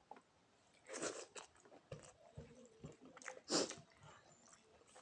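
Close-miked mukbang eating sounds: a person biting and chewing food with a few wet, crunchy mouth noises, the loudest about three and a half seconds in.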